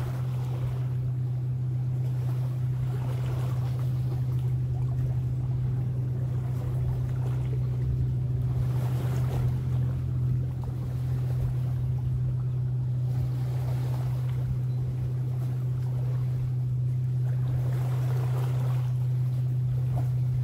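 Lake waves and wind washing along the shore, swelling and fading every few seconds over a steady low drone.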